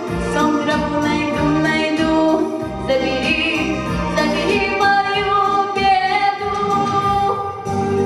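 A girl singing a slow melody into a microphone over instrumental backing music, heard through the hall's sound system.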